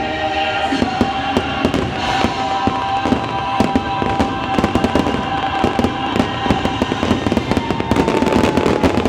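Fireworks going off in quick succession, many sharp bangs and crackles, busiest near the end. Under them plays the show's music soundtrack, with a long held note through the middle.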